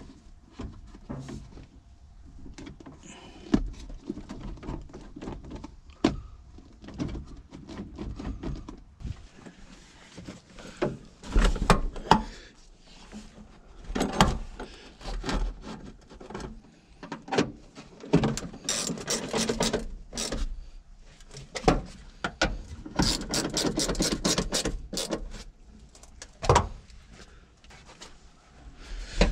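Hands refitting a small truck's cab interior, with the rubber shift-lever boot and plastic trim rustling and scraping and irregular clicks and knocks, a couple of the loudest knocks about midway.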